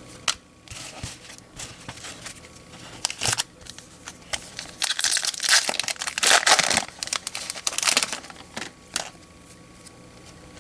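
Trading card pack wrapper crinkling and tearing as a pack of baseball cards is ripped open, in irregular rustling bursts that are busiest in the middle of the stretch.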